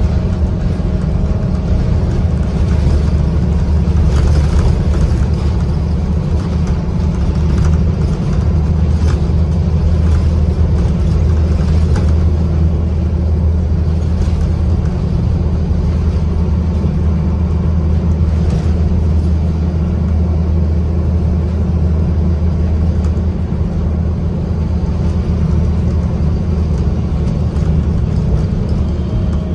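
Interior of a Scania N230UD double-decker bus on the move, heard from the upper deck: its five-cylinder diesel engine drones steadily at a low pitch, over road and tyre noise, with occasional light rattles from the bodywork.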